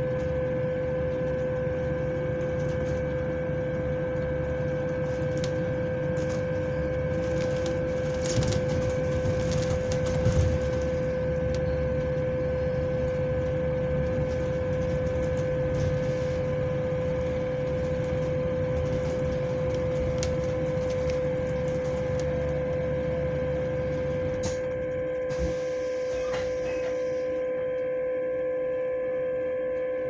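Steady high-pitched whine, one held tone with fainter overtones, from a bus's fan, which the uploader finds weird, heard inside the bus over the low rumble of the running vehicle. About 25 seconds in the rumble drops away while the whine carries on, with a few brief rattles near 8 to 10 seconds in.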